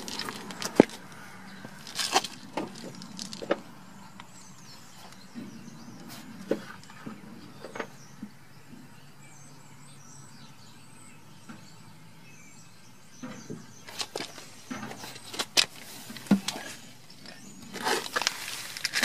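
Quiet outdoor background with faint bird chirps, broken by scattered clicks and knocks, in a cluster about two to three seconds in and more from about fourteen seconds on.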